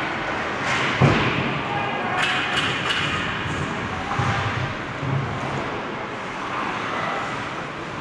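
Ice hockey game sounds in an arena: a steady wash of rink noise with faint shouting voices, a sharp thud about a second in and a few lighter clicks a second or two later.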